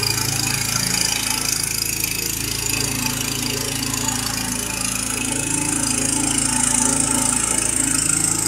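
Robin Subaru engine running steadily under load, driving the water pump that feeds a fire hose, with a steady hiss from the high-pressure water jet.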